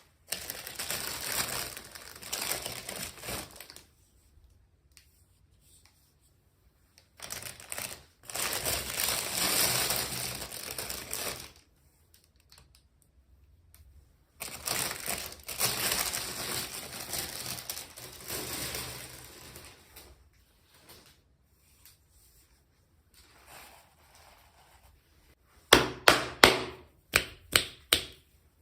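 Plastic packaging being handled and opened: three stretches of crinkling and rustling with quiet pauses between them, then a quick run of about seven sharp clicks or snaps near the end.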